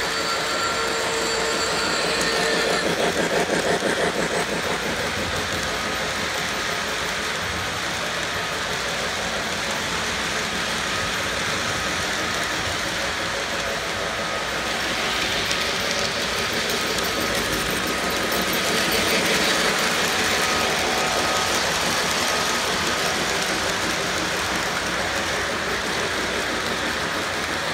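Lionel LionChief O-gauge model trains running on three-rail track: a steady rumble of wheels and motors, swelling as trains pass close around 3 s in and again from about 15 to 20 s.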